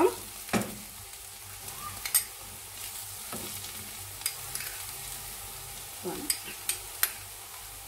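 Sliced onions frying in oil in a nonstick pan with a steady sizzle, while a wooden spatula stirs them, knocking and scraping against the pan several times. The onions are fried brown, the stage at which the spice powders go in.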